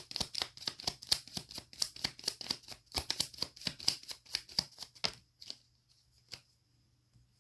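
A tarot deck shuffled by hand: a quick run of card flicks, about six or seven a second, that stops about five seconds in, followed by a few single card clicks.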